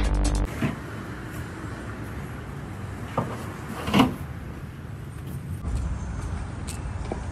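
The tail of intro music cuts off about half a second in, leaving steady street ambience with a low traffic hum. Two short knocks come about three and four seconds in, the second the loudest.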